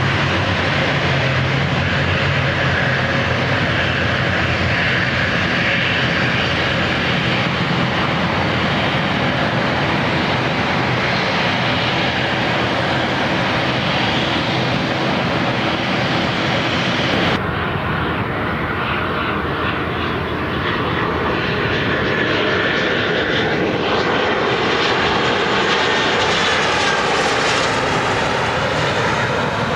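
Dash 8 turboprop at takeoff power, a steady propeller and engine noise with low droning tones, as it rolls and climbs away. After a sudden cut a little past halfway, steady jet noise from an Embraer regional jet on the runway.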